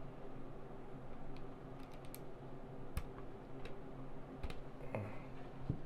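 Irregular sharp clicks from a mechanical keyboard as resin artisan keycaps are fitted onto the switches, about seven clicks spread unevenly over a few seconds.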